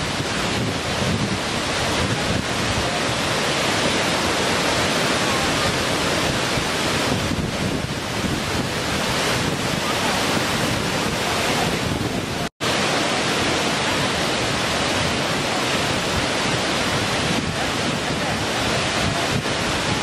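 Waterfall cascading over rock ledges: a steady, loud rush of falling water, broken once by a sudden brief gap in the sound about twelve seconds in.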